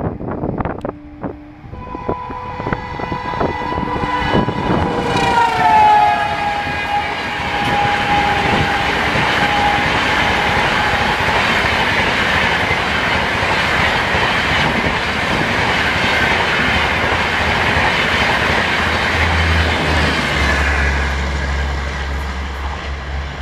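WAP7 electric locomotive sounding a long horn as it approaches at high speed, the horn's pitch dropping as it passes. It is followed by the train's coaches rushing past with a steady rumble and wheel clatter for about ten seconds, and a low steady hum comes in near the end.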